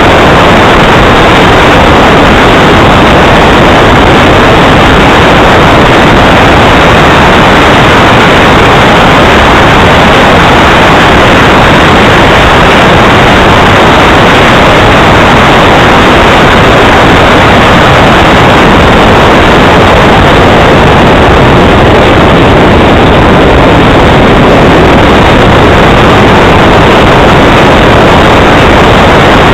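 Radio-controlled model jet's engine running as a loud, steady rush with no pitch changes, loud enough to overload the recording.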